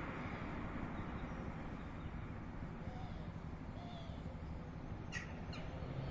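Steady hum of street traffic with faint bird calls over it, a few short curved notes. Two brief sharp sounds about half a second apart come a little past five seconds in.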